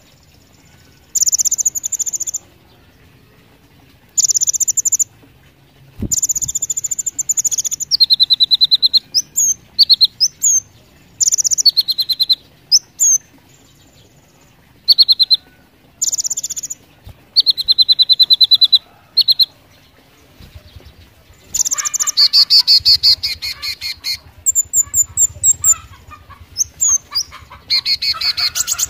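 Caged kolibri ninja (konin) sunbird singing in short, rapid, high-pitched bursts of chirps and trills, with brief pauses between them. The bursts come closer together and louder in the last third.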